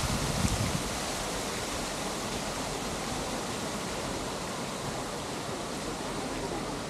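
A steady, even hiss of outdoor noise, with wind buffeting the microphone for the first second or so.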